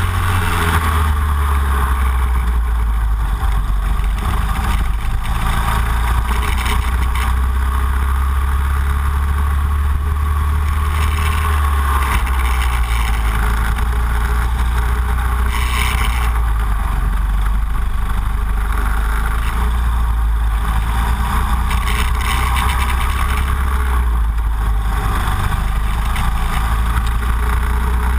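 Go-kart engine running hard at speed, heard from an onboard camera, its pitch stepping down and back up a few times as the kart lifts and accelerates through corners and straights.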